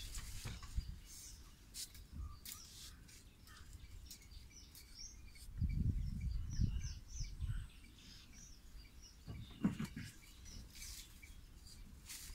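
Small birds chirping over and over in the scrub. Low rustling bursts come from the bushes about halfway through, where the Asian elephant is feeding, and there is a sharp crack a little later.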